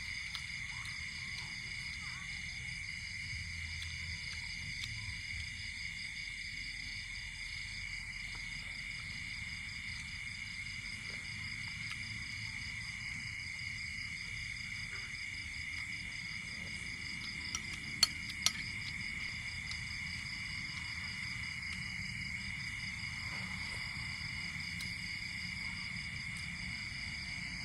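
Night chorus of insects, a steady high-pitched trilling that holds throughout, with two sharp clicks about 18 seconds in.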